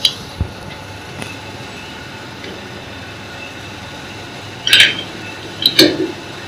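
Metal-on-metal clinks from a T-handle chuck key and the jaws of a lathe chuck as a job is clamped: a few light clicks, then two sharp ringing clanks near the end, over a steady workshop background noise.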